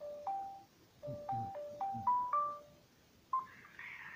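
Telephone hold melody over the phone line while the call is being transferred: about eight short, plain electronic chime notes in a little tune that climbs toward the end. Near the end a single higher tone sounds, followed by a rush of line noise.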